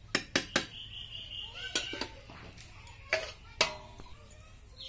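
A metal spatula knocking against the rim of an iron kadai: about seven sharp clangs, three in quick succession at the start and the rest in uneven pairs.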